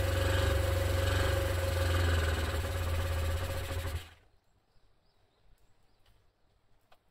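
Honda NS250F two-stroke V-twin engine running steadily, then cutting off suddenly about four seconds in, followed by a few faint clicks.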